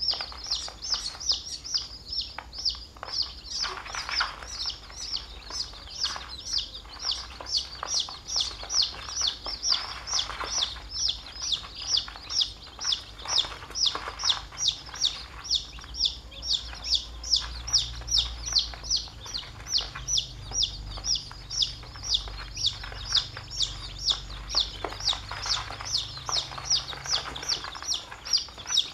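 A brood of young chicks peeping continuously: high, short, falling peeps, several a second, overlapping from many birds.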